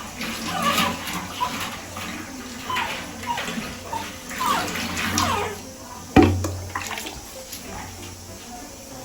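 Water running and splashing over a pug puppy being bathed, with short high whimpers rising and falling through it, and a sharp knock about six seconds in.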